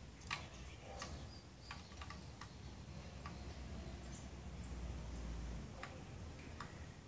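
Caged saffron finch moving about its cage: scattered sharp ticks and clicks, about ten of them at uneven intervals, with a few faint, short high chirps, over a low background rumble.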